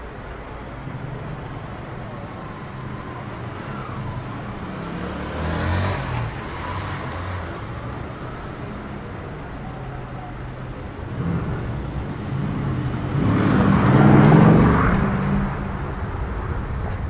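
City street traffic, with motor vehicles passing close by: one pass about six seconds in and a louder one about fourteen seconds in, over a steady low engine rumble.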